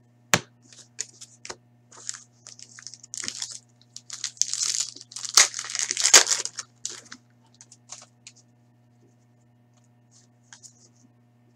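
Hockey card pack being torn open and crinkled by hand, with a sharp click at the start and a dense run of tearing and crinkling that is loudest a little past the middle. After that come only faint occasional ticks of cards being handled, over a faint steady hum.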